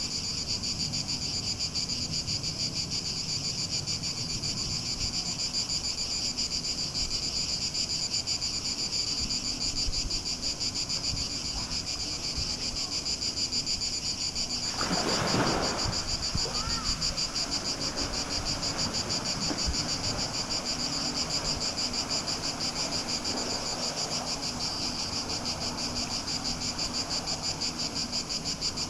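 Steady high-pitched chorus of insects, with one loud splash about halfway through as a person jumps into a swimming pool.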